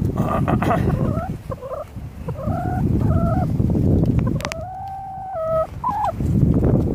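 Broody hen calling from her nest on a clutch of eggs: a run of short pitched calls, then one long held call about four and a half seconds in that drops at its end, and a brief call after it. Low rustling and wind rumble lie underneath.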